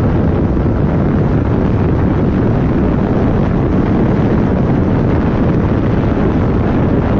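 Steady wind rushing over the microphone of a Yamaha sport motorcycle riding at speed, covering the bike's running engine and road noise.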